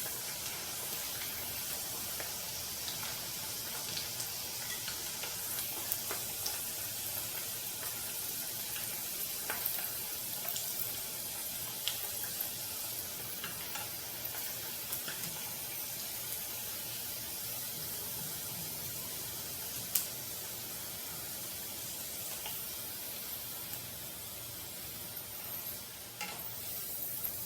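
Thin slices of beef jerky sizzling in hot deep-frying oil: a steady hiss with scattered small crackles, and one sharp click about two-thirds of the way through.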